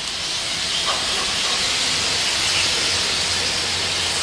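Steam locomotive giving off a steady hiss of escaping steam.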